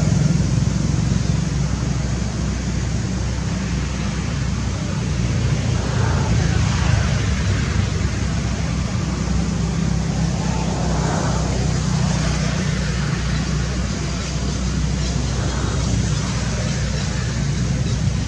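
Steady road traffic noise: a constant low rumble with a hiss above it, and faint voices now and then.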